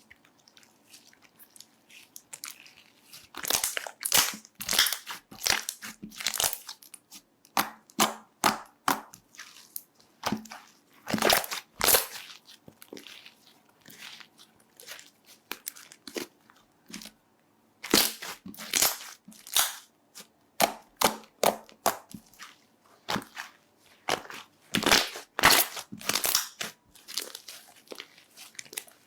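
Crunchy slime being pressed and squeezed, giving clusters of sharp crackling pops with quieter pauses between them.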